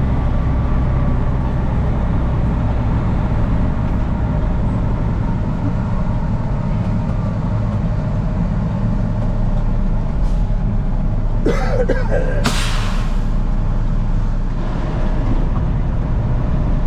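Peterbilt grain truck's diesel engine idling steadily, with a short burst of hissing air about twelve seconds in.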